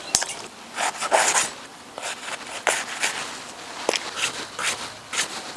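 Irregular scraping and rubbing strokes from hands working with food or kitchen things, with a few sharp clicks, one right at the start and one near the four-second mark.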